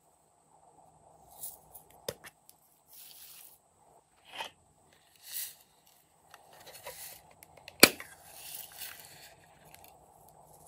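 Hands handling small plastic containers and craft glitter: light clicks and short shaking rustles, with one sharp plastic snap just before eight seconds in that is the loudest sound.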